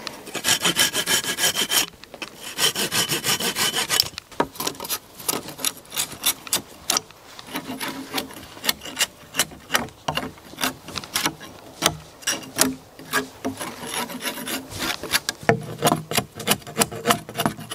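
A green branch being sawn in quick back-and-forth strokes for the first few seconds. Then a long run of irregular sharp knocks and scrapes as a blade works along the wooden pole.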